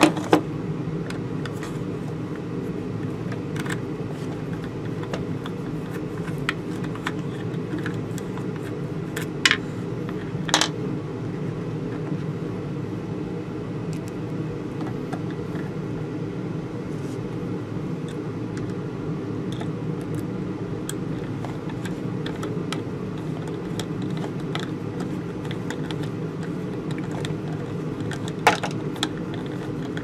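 A steady low hum runs throughout, with a few sharp plastic clicks and taps as inline fuse holders and their wires are handled on a workbench: once just after the start, twice around the ten-second mark, and once near the end.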